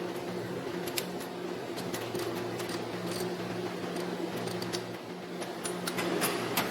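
A steady machine hum with a few light clicks and taps of handling, about a second in and again near the end.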